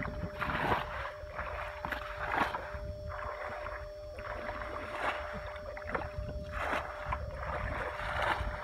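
Hands sloshing and splashing through shallow muddy water and mud while groping for fish by hand, in irregular bursts.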